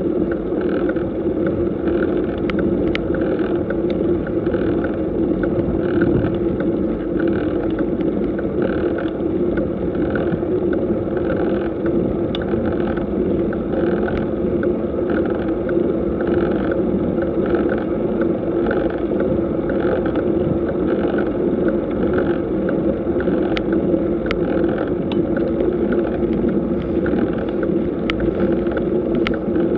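A bicycle climbing slowly, heard from a camera mounted on the bike: steady tyre and wind noise with a faint regular pulse and a few sharp clicks.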